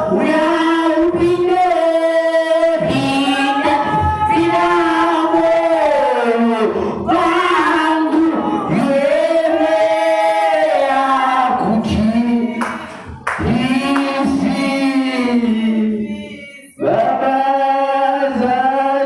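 A church congregation singing unaccompanied, men and women together, in long held phrases with two short breaks for breath.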